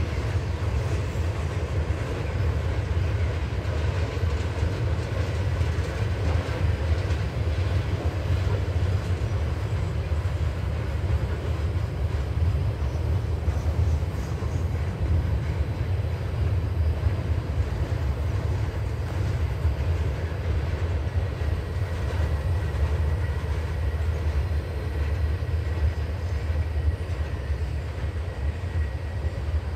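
Freight train cars rolling past: a steady low rumble of steel wheels on the rails.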